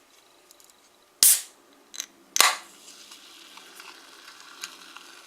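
Sealed cola can pulled open in two sharp pops about a second apart, each followed by a short hiss of escaping carbonation gas. The can is under pressure.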